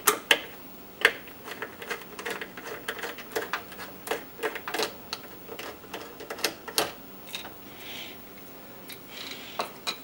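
Irregular small clicks and taps of a screwdriver turning out the screw in a plastic roof-vent lift knob, with the knob knocking and rattling in the hand, and a soft rubbing hiss near the end.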